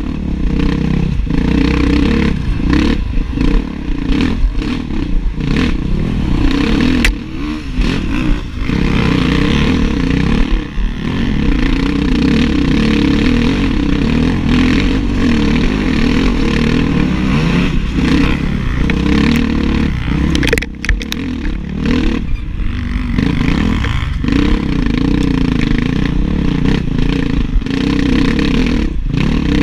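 Enduro dirt bike engine recorded on board while racing, its revs rising and falling with the throttle and easing off briefly several times, with a few sharp knocks along the way.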